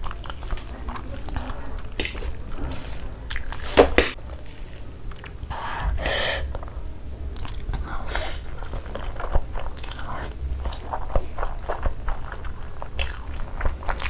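Close-miked eating sounds: wet chewing and slurping of a mouthful of masala Maggi instant noodles, with a sharp click about four seconds in.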